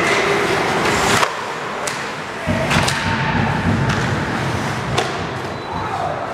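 Ice hockey play: skates scraping on the ice and about four sharp knocks of sticks and puck.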